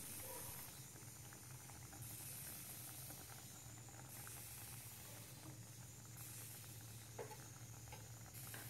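Oil-free fish curry simmering in a pan on a gas burner: faint bubbling and hiss with small crackles, over a steady low hum.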